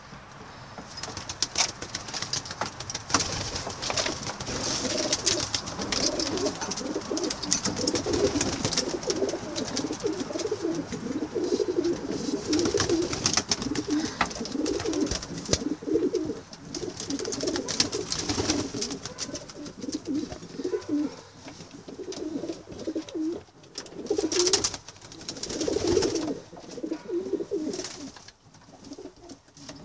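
Homing pigeons cooing in their loft, a run of low, wavering coos, with rustling and small clicks mixed in throughout.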